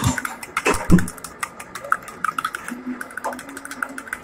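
A spoon stirring fast in a small steel tumbler, ticking against the metal sides many times a second with a light metallic ring. Two heavier knocks of the cup or spoon come in the first second.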